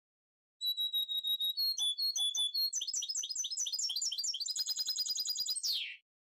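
Goldfinch × canary hybrid (mixto de jilguero) singing one long song phrase, starting about half a second in. Clear held whistles give way to quick repeated notes that speed into a fast trill, and the phrase ends in a falling slur.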